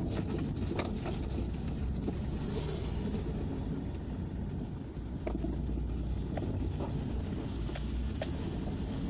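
Steady low rumble of engine and tyre noise from a vehicle driving along a road, with a few faint ticks.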